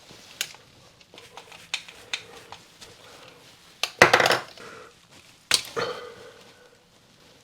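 Small metal tools and parts clinking and clattering as they are handled, with sharp clicks throughout and two louder rattles, the second ringing briefly.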